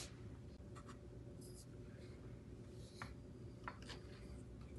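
Faint handling of the mini trampoline's metal handrail and its plastic knob: a few light clicks and taps with soft rubbing in between.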